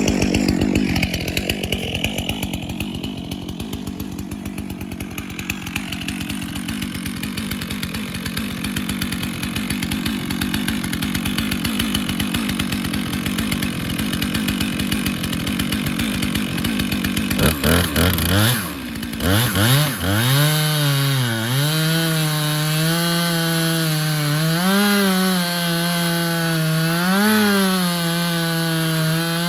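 Chainsaw on an Alaskan chainsaw mill running at full throttle, ripping along a cedar log. Partway through, the engine speed drops sharply and comes back up, then it holds a steady high note with small surges.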